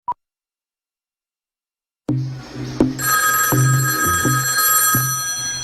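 A brief electronic beep, then silence, then an advert soundtrack starts about two seconds in: music with a pulsing low beat, joined about a second later by a steady high ringing tone that fades out near the end.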